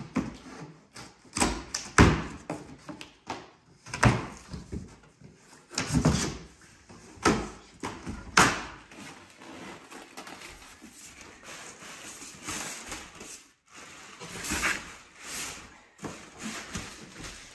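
A large cardboard speaker box being handled and torn open, with a run of thumps and knocks from the flaps and panels through the first half. It gives way to softer rustling of cardboard, foam packing and plastic wrap.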